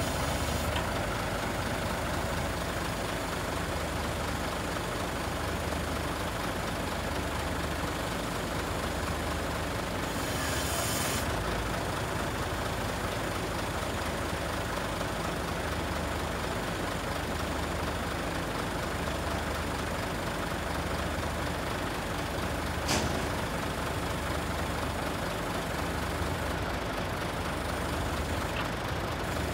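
Scania truck's diesel engine running steadily to power the Hiab 220-5 B loader crane's hydraulics as the boom folds, with a low hum that pulses on and off about once a second. A short hiss of air about ten seconds in and a single sharp click a little past twenty seconds in.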